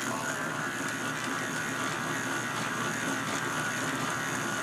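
K'nex electric motor running steadily, driving the plastic gears and chain that move the programming tape.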